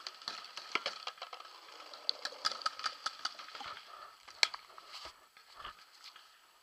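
Paintballs rattling and clicking as a pod is emptied into a paintball marker's hopper, with one sharper click about four and a half seconds in.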